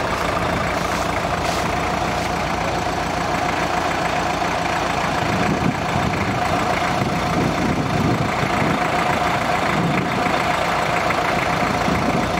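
Diesel fire-truck engine idling steadily.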